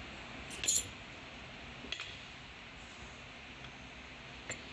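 A short sharp metallic clink about half a second in, then a couple of faint ticks: a hand hammer tapping on metal while knocking out a one-way bearing.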